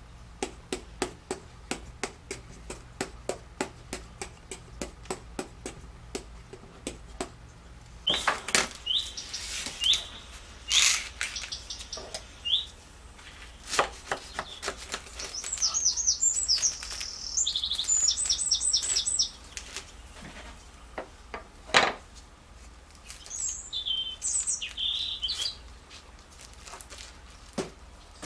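A rapid, regular series of light knocks, about three a second, stops after about seven seconds. A bird then chirps and sings in quick high trills, with a few louder single knocks between the calls.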